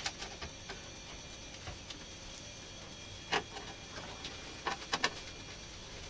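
Scattered light clicks and taps of hands and screws working inside a Fractal Design Core 1000 PC case as the motherboard is screwed in. A sharper click comes about three seconds in and two more close together about five seconds in.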